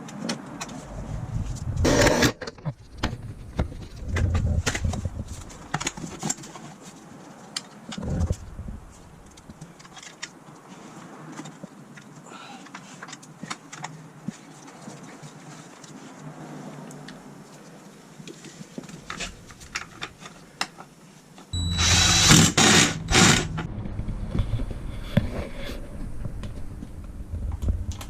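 Hand-tool clicks and clanks of a wrench being worked, then about 21 seconds in the electric starter of a Honda TRX450ER's single-cylinder four-stroke engine cranks it over with a sudden loud mechanical run and a steady whine. This is a start test of a newly fitted starter clutch gear.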